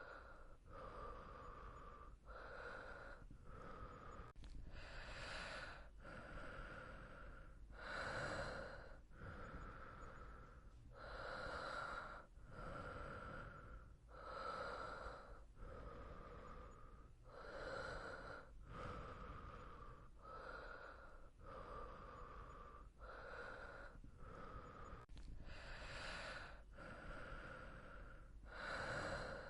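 A person breathing softly in sleep: a steady, even run of airy inhales and exhales, with every few breaths a little louder than the rest.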